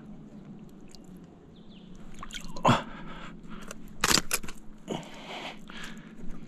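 Oyster shells crunching and clacking as a clump of wild oysters is worked loose from a rock by hand in shallow water, over dripping and lapping water. The loudest cracks come about two and a half seconds in and again around four seconds in.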